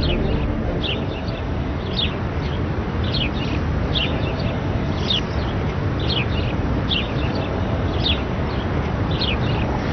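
Birds chirping: short downward-sliding chirps about once a second over a steady background noise.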